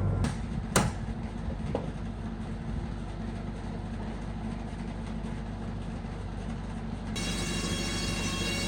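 1917 sawmill machinery running with a steady low rumble, with three sharp clanks in the first two seconds. A steady pitched tone joins about seven seconds in.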